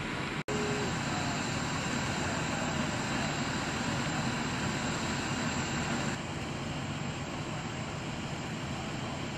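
Steady engine rumble of idling fire trucks, broken by a split-second gap about half a second in and a little quieter after about six seconds.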